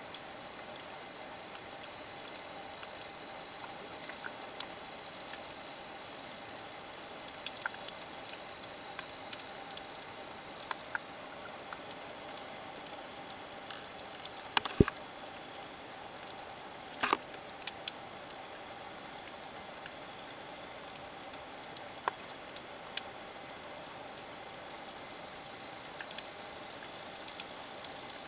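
Underwater reef ambience: a steady hiss with scattered sharp clicks and crackles at irregular intervals, two louder clicks about halfway through, a couple of seconds apart.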